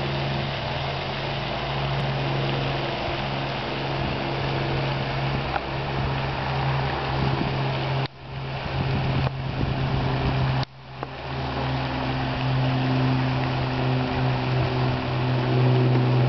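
An engine running steadily with a low, even hum. The sound cuts out abruptly twice in the second half.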